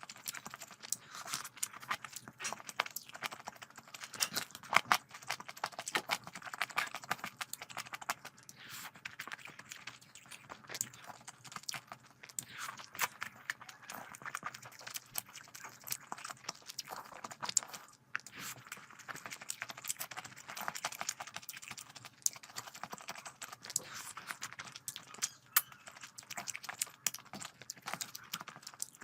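Close-miked eating of rice and curry: wet chewing, lip-smacking and mouth clicks coming in quick, irregular runs.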